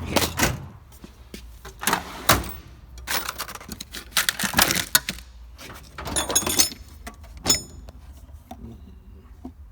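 Metal tools and parts being handled: irregular clattering and knocks, with a few bright metallic clinks about six and seven and a half seconds in.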